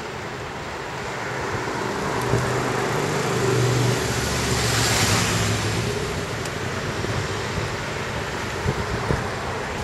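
A motor vehicle passes close by on the street: a low engine hum and tyre noise swell to a peak about halfway through, then fade away. A few light knocks near the end.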